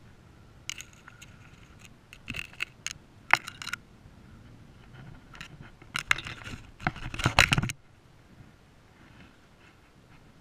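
Close scraping and clattering as a hooked fish and the fishing tackle are handled: a few short bursts in the first few seconds, then a longer, louder run of rattling from about six to seven and a half seconds in.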